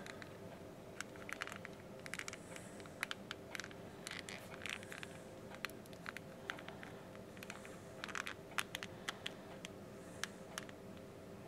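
Faint scattered clicks and scraping of an Otterbox phone case being worked back onto a phone by hand, the rubber skin and plastic shell rubbing and snapping into place, over a faint steady hum.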